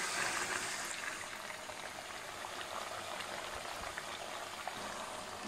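Chicken pieces frying in hot oil in a kazan: a steady sizzling hiss with fine crackles, a little louder in the first second and then settling.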